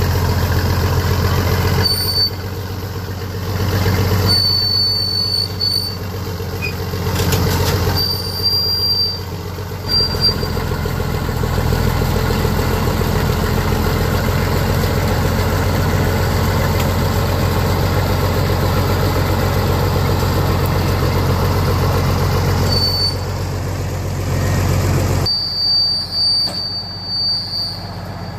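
Vehicle engine running steadily, its loudness dipping and rising a few times, with short high-pitched squeals now and then.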